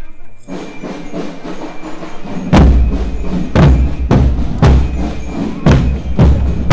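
Marching drum band playing a cadence: a rattle of drumming starts about half a second in, and heavy bass drum strokes join a couple of seconds later, falling roughly once a second.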